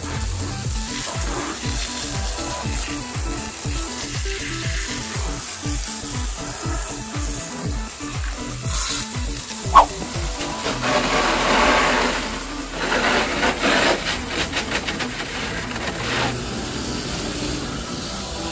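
Water jet from a garden hose spraying onto a window air conditioner's housing and coils: a steady hiss, growing into louder splashing in the second half. Background music with a regular beat runs under the first half, with a short sharp click just before it stops.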